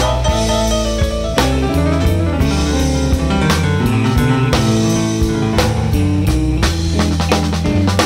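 Background music: a song with guitar and drums.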